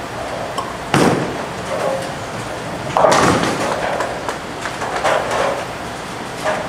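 Bowling alley lanes: a sharp thump about a second in, then a louder clattering crash of tenpins about three seconds in that dies away over half a second, over the hall's steady rumble of rolling balls and pinsetters.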